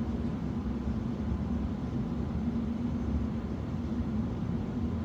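Steady low mechanical drone with a hum, even and unbroken.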